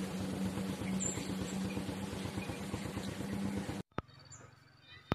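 A steady motor-like hum with a rapid even pulse cuts off abruptly just under four seconds in. What follows is quiet, with a few high bird chirps and some sharp clicks.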